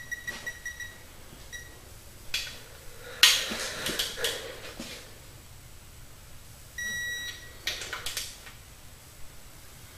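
Electronic torque wrench beeping rapidly, about six beeps a second, as a main bearing cap bolt is pulled toward its set torque; the beeping stops about a second in. Metal clatter from the wrench and socket on the bolts follows and is the loudest part. Near the end the wrench gives one longer steady beep, the signal that the set torque is reached.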